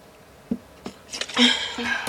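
A girl forcing a burp after gulping carbonated cherry limeade: a rough, low belch about a second in, preceded by a couple of faint clicks.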